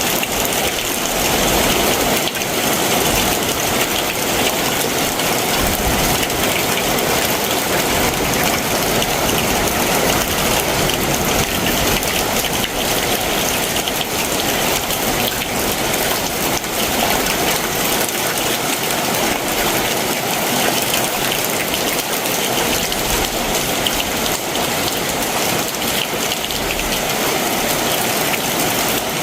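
Heavy summer monsoon rain pouring down steadily, an even, dense hiss of drops striking surfaces.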